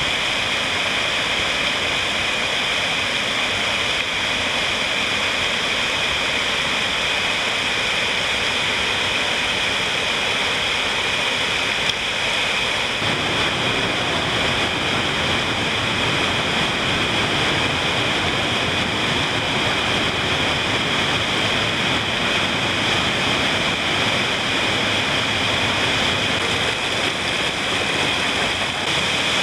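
Mountain stream rushing over rocks in a steady, even wash of water noise; from about 13 seconds in it grows fuller and deeper.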